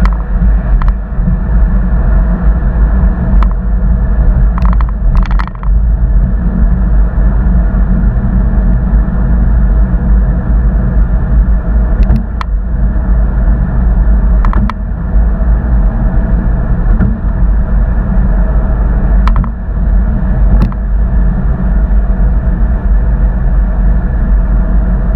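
2013 Porsche Boxster on the move: a loud, steady low rumble of car noise with no rise in pitch. A handful of short sharp clicks are scattered irregularly through it.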